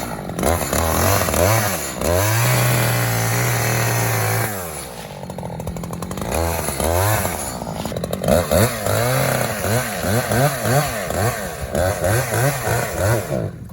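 Two-stroke chainsaw running and revved up and down over and over, held at a steady high speed for about two seconds, then given a long string of quick revs; it drops away suddenly at the end.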